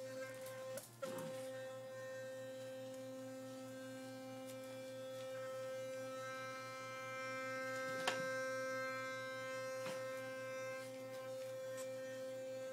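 Philips Sonicare electric toothbrush running with a steady high-pitched hum, which stutters briefly about a second in. A couple of faint knocks come partway through.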